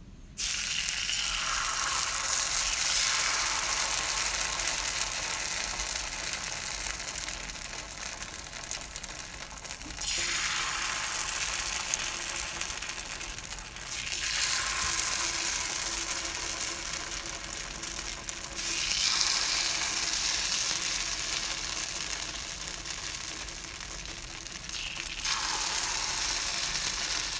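Rice-and-coconut batter sizzling as it is ladled into the cups of a hot, oiled bandros (pancong) pancake mold. Each new ladleful sets off a sudden loud hiss that slowly fades, about five times over.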